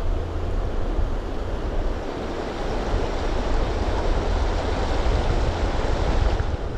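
A shallow river riffle rushing over stones, with wind buffeting the microphone in a low rumble.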